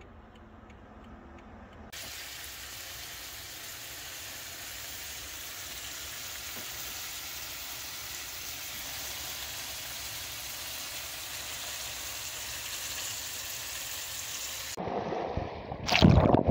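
Fish fillets with chopped greens sizzling in a stainless-steel frying pan: a steady hiss that starts about two seconds in. Near the end it gives way to louder water washing at a beach's edge.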